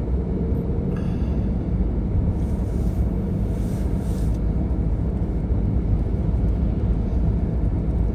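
Car driving along a road: a steady low rumble of engine and tyre noise, with a brief hiss in the middle.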